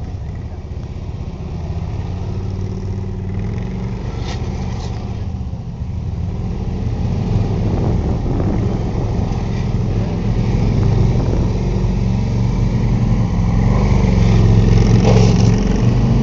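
Police motorcycle engine running at low revs with small rises and falls in pitch, growing louder toward the end.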